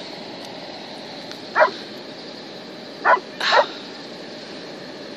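A dog barking: three short barks, one about a second and a half in and two close together about three seconds in, over steady wind noise on the microphone.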